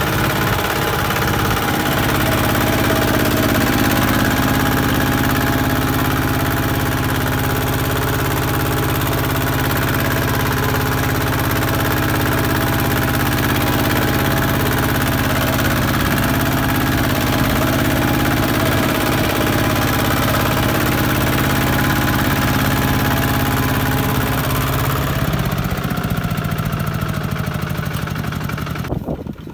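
Kubota single-cylinder diesel engine of a two-wheel walking tractor running steadily while the tractor is driven through deep paddy mud. Near the end its pitch falls as the engine slows, and the sound drops away suddenly just before the end.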